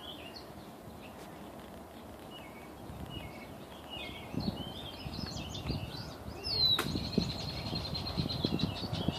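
Birds chirping: many short, high chirps. About two-thirds in comes a sharp downward sweep that settles into one long, steady high whistle, over a low rumble.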